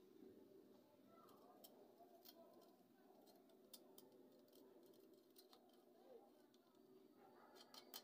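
Near silence: faint room tone with a few scattered faint clicks of a cable's ring terminal and post knob being handled on a power inverter's battery terminal.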